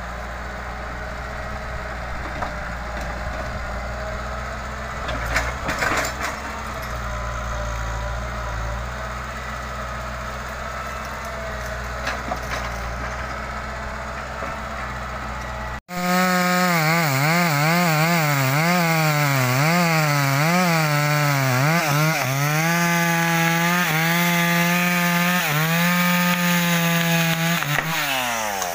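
Hitachi excavator's engine running steadily while its grapple works through brush, with a few sharp cracks of breaking wood about five to six seconds in. After an abrupt cut about halfway, a chainsaw runs loud, its pitch wavering at first and then held steady, and it winds down quickly near the end.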